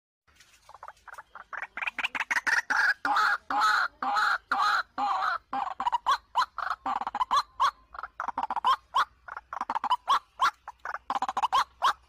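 White-breasted waterhen (ruak-ruak) calling: a fast, unbroken run of short repeated call notes, about four or five a second, starting abruptly out of silence just after the start.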